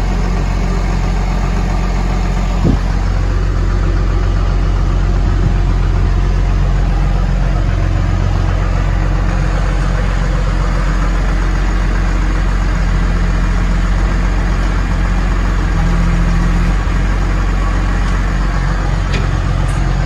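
Case 850L bulldozer's diesel engine running steadily, heard from inside the operator's cab. A single brief click comes a few seconds in.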